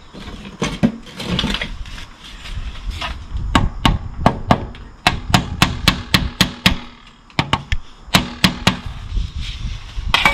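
Keystone SK90 galvanised steel cavity lintel being tapped down into its mortar bed with a hand tool: a run of sharp metallic knocks in three quick bursts, some leaving a brief ring. The tapping brings the low end down to level.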